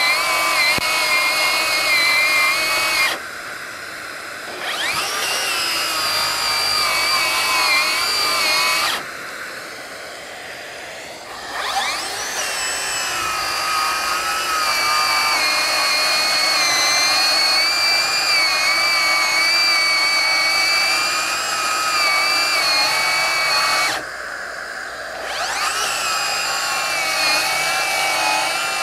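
Ryobi One+ HP 18V brushless 7-1/4" circular saw ripping lengthwise through a pressure-treated 4x4 at full blade depth, its motor whine wavering under the load. Three times the whine stops for a second or two, leaving a steadier rushing sound, then spins back up with a rising whine.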